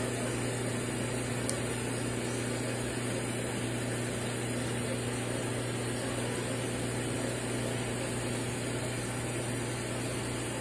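Steady low electrical hum over an even hiss, unchanging throughout, as from running machinery such as pumps.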